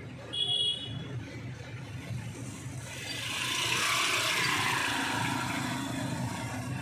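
KAMAZ truck's diesel engine running steadily, heard from inside the cab. About half a second in there is a short high-pitched beep. From about three seconds a louder rushing noise swells and then slowly fades.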